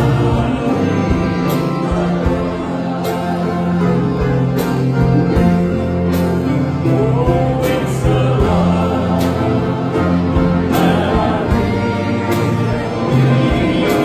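Live gospel band music: drum kit, electric bass and keyboard with singing, the drums striking a steady beat about once a second.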